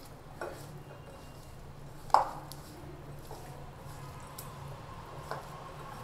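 Hand tossing spice-coated raw potato sticks in a glass mixing bowl: faint squishing with a few light knocks against the glass, the sharpest about two seconds in.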